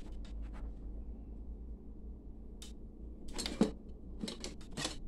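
Scattered short clicks and brief scraping noises over a low steady hum, the loudest cluster about three and a half seconds in and another just before the end.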